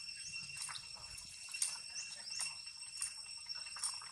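Soft splashing and lapping of water as a young long-tailed macaque swims, with short clicks and chirps several times over a steady high-pitched buzz.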